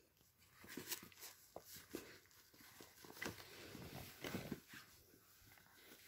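Near silence, broken by faint, scattered soft taps and rustles as puppies move about on puppy training pads, with a couple of slightly louder brief sounds about three and four seconds in.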